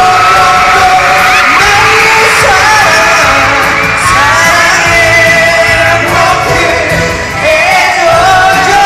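Live pop song from the audience: a male vocalist singing over the backing music, with fans screaming and cheering throughout.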